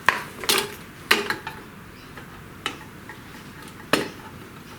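About five sharp clicks and knocks, irregularly spaced, of plastic cable plugs being handled and pushed firmly into their sockets.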